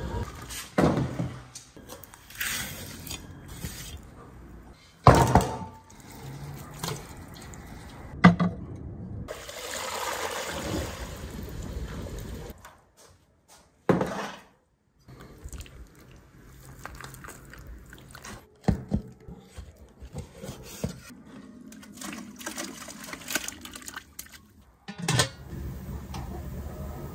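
Water pouring and splashing in a large aluminium cooking pot, broken by several sharp knocks and clatters of cookware.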